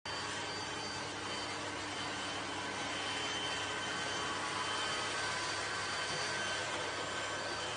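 Robot vacuum cleaner running: a steady whirring hiss with a faint high-pitched whine.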